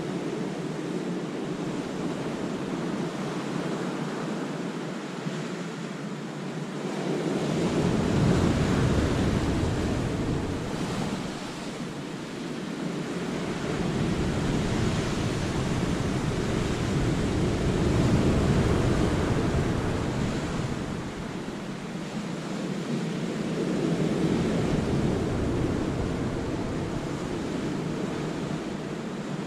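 Sea waves breaking and washing through a rocky cove as a steady rush of surf, swelling louder and easing back every several seconds.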